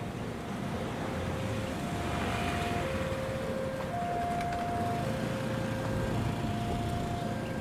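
A two-note electronic warning signal alternating a lower and a higher note, each held about a second, over the low running rumble of the KA BIAS railcar train coming in on curved track.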